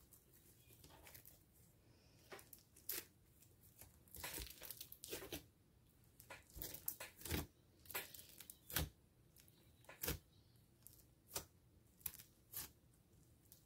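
Dried bubbly foam slime being stretched and pressed by hand, crackling and tearing in a run of short, sharp snaps that begin about two seconds in.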